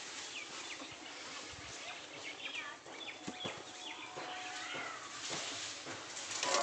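Birds chirping, with a few light metallic knocks as a steel plate lid is held down on a metal rice pot with a cloth.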